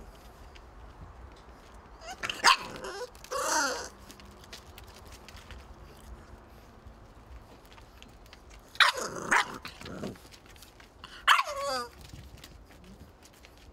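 Bulldog puppies barking: short, yappy barks that drop in pitch, in three bursts, about two seconds in, about nine seconds in and about eleven seconds in.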